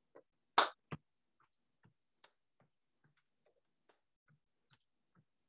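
Faint, fairly regular soft taps of feet stepping in place, about two to three a second. Two louder short sounds come in the first second.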